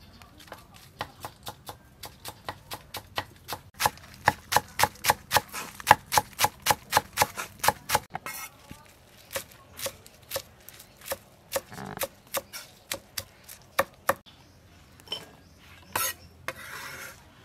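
Cleaver chopping green onions on a thick round wooden chopping block: a run of sharp knocks about three a second, quickening to about four a second and louder for a few seconds in the middle, then sparser. A short burst of noise comes near the end.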